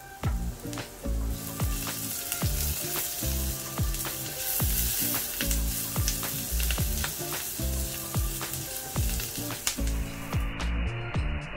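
Food sizzling and frying in a hot pan while being stirred, over background music; the sizzle cuts off near the end.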